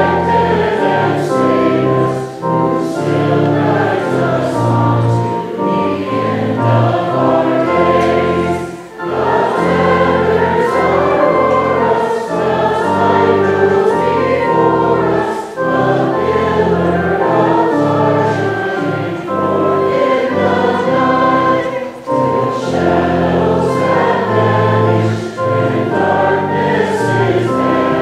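A hymn sung by many voices together, over an instrumental accompaniment that holds long steady low notes, with short breaths between phrases.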